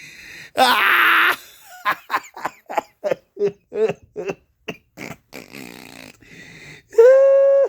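Pet dog snoring and snorting: a loud snort about half a second in, then a quick run of short snorts at about three a second, and a held whining note near the end that cuts off suddenly.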